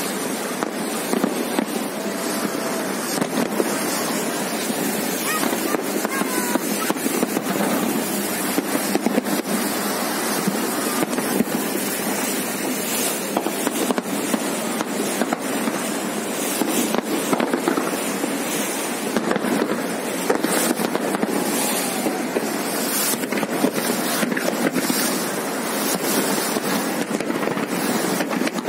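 Fireworks going off over the river, a steady run of bangs and crackles throughout, over the chatter of spectators and the rush of wind and water from a boat.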